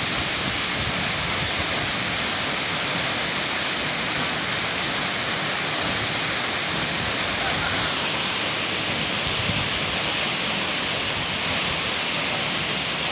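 Waterfall rushing steadily, an unbroken roar of falling water; about eight seconds in the hiss turns brighter.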